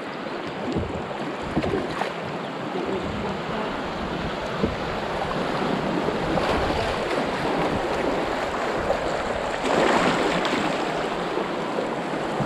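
Fast river water rushing and splashing around an open canoe running a small rapid, growing louder toward the end, with occasional splashes of paddle strokes.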